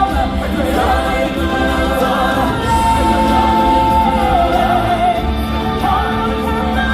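Live stage-show singing: a choir and soloists sing over recorded backing music. A lead voice holds one long high note from about three seconds in, then lets it waver down.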